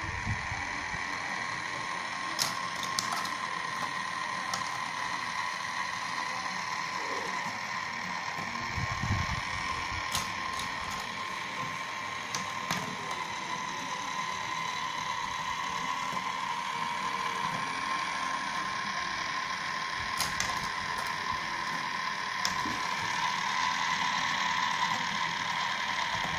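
Motorized marble run running: a steady mechanical whine from the lift, with scattered sharp clicks as the marbles go along the track.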